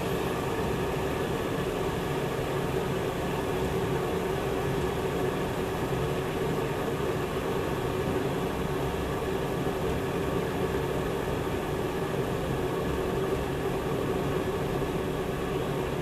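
Glass electric kettle heating water, a steady rushing noise as bubbles form on the bottom before the water comes to the boil.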